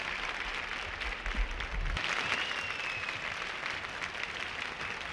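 Large audience applauding: a steady, even patter of many hands clapping.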